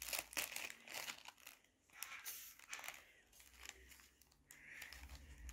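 Light clicking and rustling of thin clear plastic enclosure panels being handled and pushed together. The clicks are dense for the first few seconds, then thin out.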